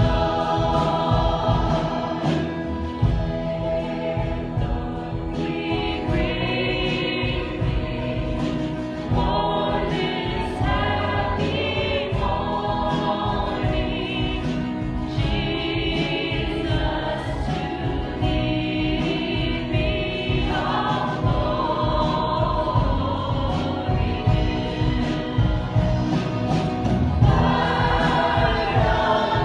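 Christian worship song: several voices singing together over instrumental accompaniment with a steady beat.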